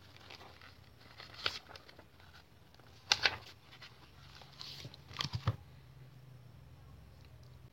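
Brief rustles and light taps of paper and packaging being handled, a few scattered handling noises with the loudest about three seconds in.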